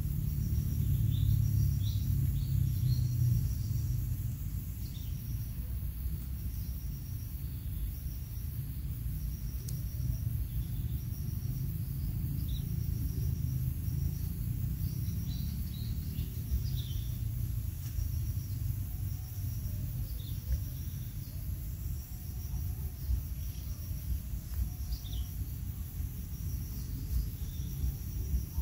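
Outdoor field ambience: a steady low rumble, louder in the first few seconds, under scattered short high bird chirps and a short high note repeating about once a second, with a faint steady high hiss.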